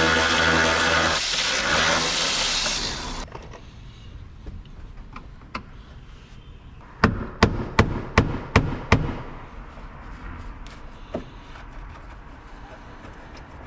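The 2010 Mitsubishi Delica's engine runs with a steady hum and cuts off about three seconds in. About seven seconds in come six sharp knocks in quick succession.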